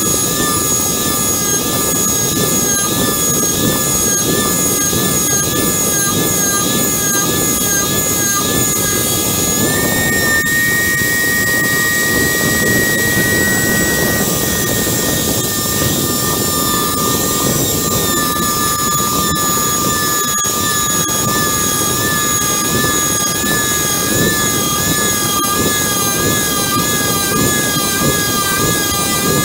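Cheap electric router with its bit milling a slot into a cast-iron brake disc: a steady high whine over a rough cutting noise. The pitch wavers throughout, except for a few seconds about ten seconds in when it rises slightly and holds steady.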